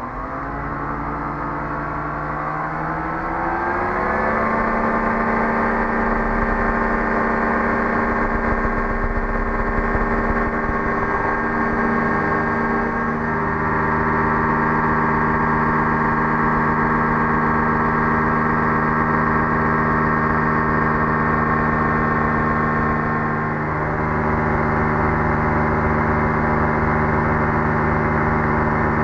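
The ultralight's Rotax 503 two-stroke engine and propeller run up to full power for takeoff, rising in pitch over the first few seconds. They then run steadily at climb power.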